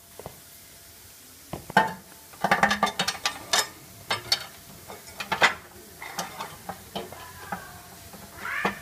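Spanners and small metal parts clinking and clattering against a plastic housing in irregular bursts of sharp clicks, busiest a couple of seconds in.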